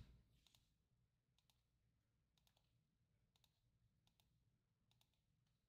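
Near silence with faint, scattered clicks at irregular intervals.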